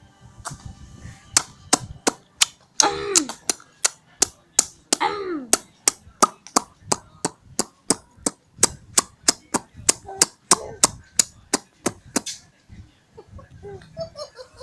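A steady run of sharp smacks, about three or four a second, starting about a second in and stopping near the end. Twice, early on, a short high voice sound rises and falls over them.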